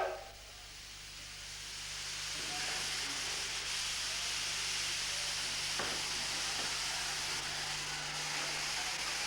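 Steady hiss of escaping steam from the steam locomotive J 549, building over the first two seconds and then holding.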